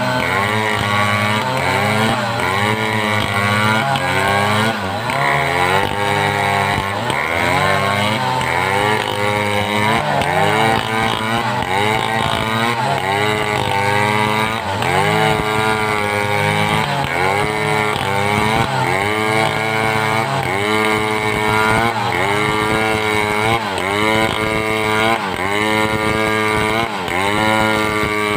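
Home-assembled two-stroke chainsaw cutting through timber at high revs. Its pitch drops under load and recovers over and over, about once a second or so.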